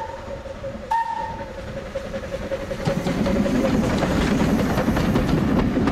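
Steam whistle of a Terrier tank locomotive giving a short toot about a second in. From about three seconds in, the locomotive and its carriages pass close by with a building, clattering rumble of exhaust and wheels.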